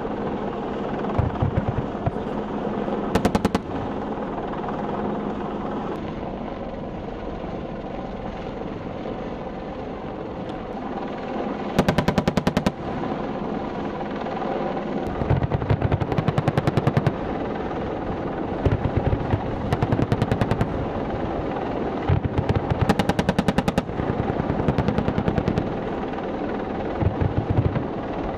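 AH-64 Apache's 30 mm chain gun firing repeated short bursts, each a rapid string of shots at roughly ten a second, over steady helicopter noise.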